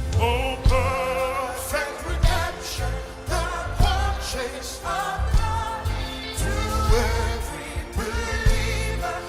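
Live gospel worship music: a singer's voice with wavering, drawn-out notes over bass guitar and regular drum hits.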